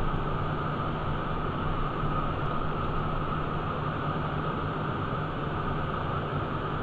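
Steady in-flight cockpit noise of a Cessna Citation 501: a constant hiss of airflow and turbofan engines, with a low hum underneath and no change in pitch or level.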